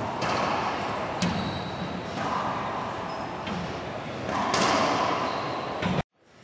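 A racquetball rally: sharp cracks of the ball off racquets and court walls, about one a second, each followed by a long ringing echo in the enclosed court. The sound cuts off suddenly near the end.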